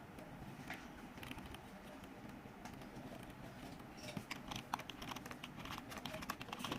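Quick small clicks and taps of hands working on computer parts, sparse at first and much busier from about four seconds in.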